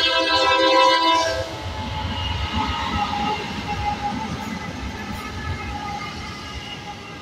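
Diesel freight locomotive's multi-chime air horn sounding loudly, cutting off about a second in. Then the lead locomotives pass close by with a deep engine rumble and wheels running on the rails, slowly fading.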